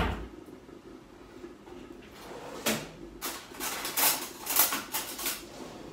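Kitchen drawer and cabinet being opened and rummaged through: a sharp knock at the start, then a quieter stretch, then a run of clicks and clatters of things being moved about inside from about two seconds in.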